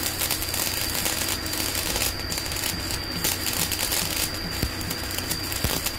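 Stick-welding arc crackling steadily as a Jasic two-function inverter welder at 250 A burns a 3.2 mm electrode. The arc runs jerky and uneven rather than smooth, which the welder blames on the machine.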